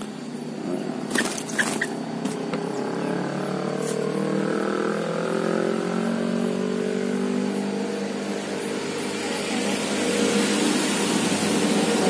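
A few sharp clicks about a second in, then a steady engine hum whose pitch drifts slowly up and down. It grows a little louder, with rising hiss, near the end.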